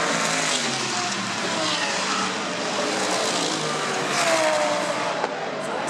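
GT race cars at full speed passing down a straight, their engine notes blending over a steady rush of noise; one car passes loudest about four seconds in, its engine note dropping in pitch as it goes by.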